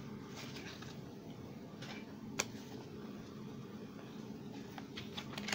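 Quiet room tone with a steady low hum, and a few faint clicks from a stack of trading cards being handled, the sharpest one near the middle.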